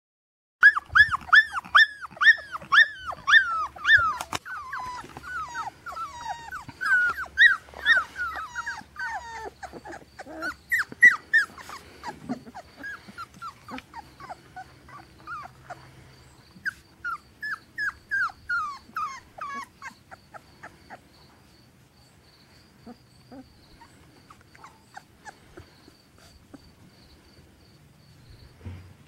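Three-week-old puppies whining and yelping in quick, high-pitched falling cries, several a second. The cries are loudest and densest in the first half, thin out, and fade to a few faint whimpers after about twenty seconds.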